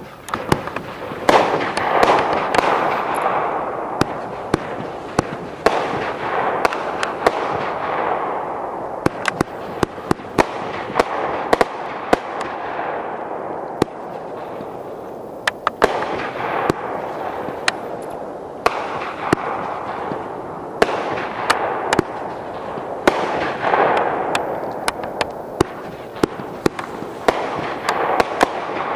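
Brothers Openfire 33-shot consumer firework cake firing: a long run of sharp shots from the tube launches and aerial breaks, often one a second or closer. A rushing noise swells after each cluster of shots and fades away over a few seconds.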